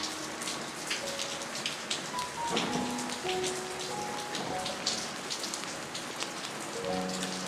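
Steady light rain falling on potted plants and their water-filled pots, with many separate drops ticking. Soft background music of a few held notes runs underneath.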